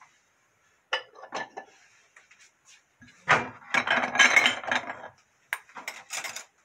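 Kitchen dishes and utensils clinking and clattering: a few separate clinks, then about two seconds of dense clatter in the middle, then more scattered clinks near the end.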